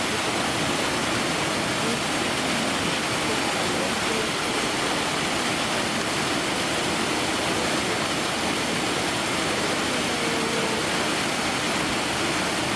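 Steady rush of running water from the polar bear enclosure's water feature, an even hiss that doesn't change.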